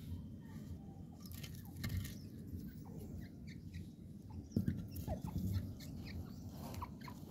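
Partridge (teetar) giving short, faint chirping calls over a low rumble, with a louder low thump-like burst about four and a half seconds in.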